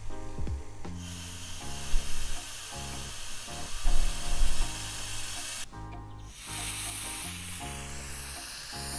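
Background music over a steady hiss of air in a vacuum degassing chamber. The hiss cuts off suddenly about six seconds in and comes back higher-pitched a moment later.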